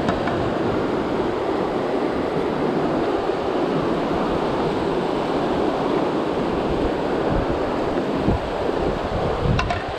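Whitewater rapids of a boulder-strewn river rushing steadily. A few low thumps and a short click come near the end.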